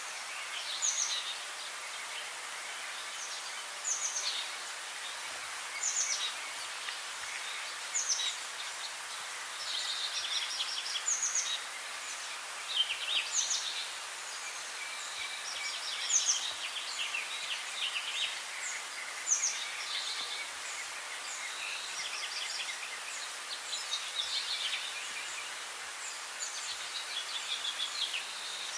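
Songbirds singing: short, high phrases that sweep downward, with quick trills, repeating about every two seconds over a steady background hiss.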